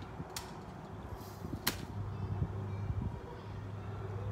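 BB gun shots: a faint snap near the start and a sharper, louder snap a little under two seconds in, over a low steady hum that comes in about halfway through.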